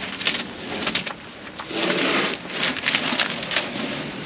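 Blue masking tape being peeled off a freshly painted boat hull: a crackling, tearing rip in several pulls.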